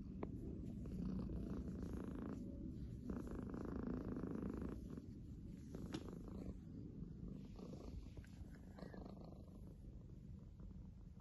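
Domestic cat purring from contentment: a deep, steady, pulsing rumble that sounds like snoring, easing a little after about five seconds.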